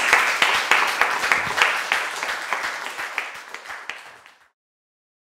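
Audience applauding, dense hand claps that fade away to silence about four and a half seconds in.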